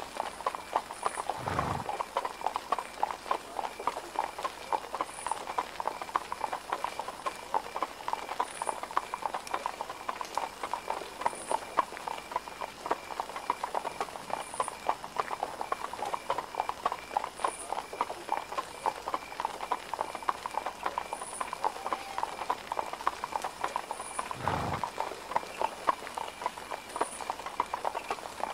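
Horse hooves clip-clopping steadily on hard ground, a continuous dense run of hoof strikes. A low, dull thud comes twice, about two seconds in and again near the end.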